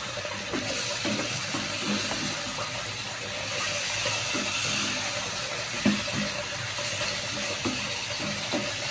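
Broccoli, potato and tomato curry sizzling steadily in a frying pan, with a few light knocks of the stirring spoon against the pan, the clearest about six seconds in.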